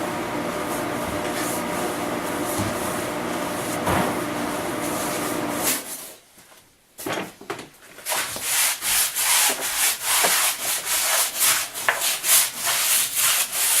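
A steady machine hum that stops about six seconds in. After a short pause comes a hand tool scraping lichen off the camper's surface in repeated short strokes, about two or three a second.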